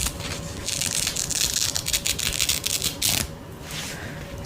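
Protective backing being peeled off the adhesive strip on a sleep-mask eye cup: a dense, crackling rustle with many small clicks that dies down about three seconds in.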